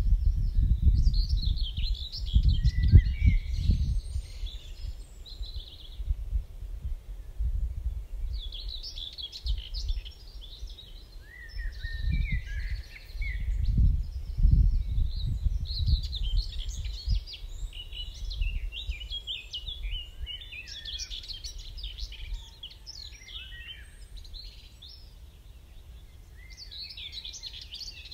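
Several small birds singing a dawn chorus of short, varied, twittering phrases. Under them runs a low, gusting rumble, strongest in the first few seconds and again around the middle, that dies down in the last third.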